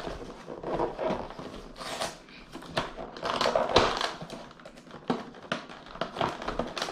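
A cardboard toy box and its plastic packaging being pulled open by hand: irregular crinkling and crackling, loudest about halfway through.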